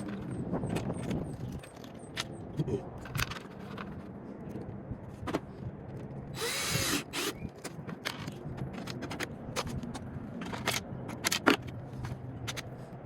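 Tools and metal parts clicking, knocking and rattling inside a car door as a new door handle is fitted, with a short whirring burst about halfway through.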